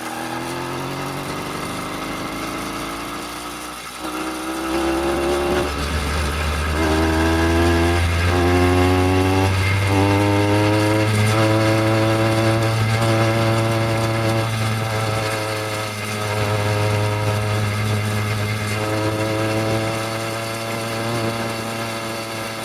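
Electronic dance music: a rising synth build-up, then about four seconds in a deep bass comes in under repeated sustained synth chords.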